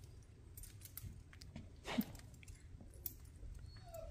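Faint clinks and jingling of a horse bridle's metal bit and buckles as it is put on the horse's head, with one sharper clink about two seconds in.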